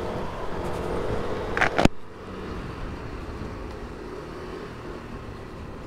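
Motor scooter riding along, its engine running steadily under wind and road noise. About two seconds in there are a couple of short clicks, then the sound drops abruptly to a quieter, steady rumble.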